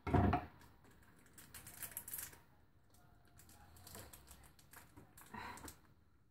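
Irregular light taps and clicks of things being handled in a kitchen, with a louder knock right at the start.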